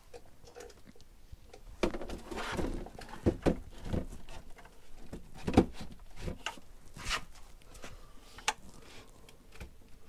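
EcoFlow Delta 2 extra battery being lifted and set down on top of the Delta II power station: a run of knocks, thumps and scrapes of the hard cases against each other as it is positioned. The sharpest knock comes about five and a half seconds in.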